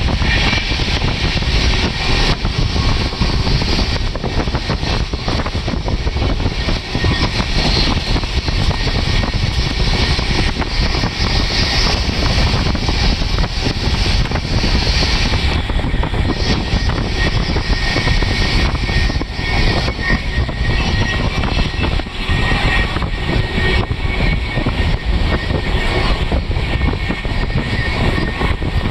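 Express train running at speed, heard from on board: a loud, steady rumble and rush of wheels on the rails.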